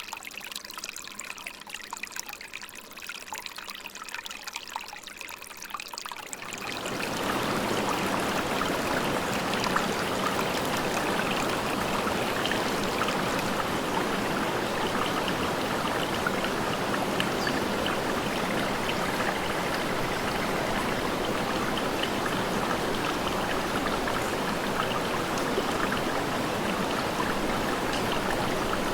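Water trickling and splashing lightly, then about seven seconds in a much louder, steady rush of falling water takes over: a waterfall pouring.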